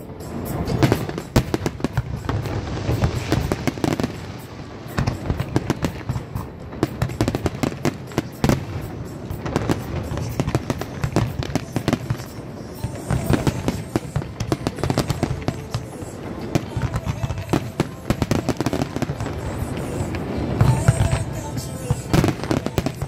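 Fireworks display: aerial shells bursting and crackling in a rapid, unbroken run, with music playing underneath.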